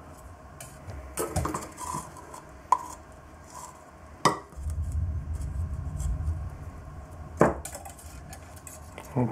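Light scraping and handling noise as wet black-powder paste is scooped from a jar and packed into the small paper tube of a homemade electric match, with four sharper taps spread through.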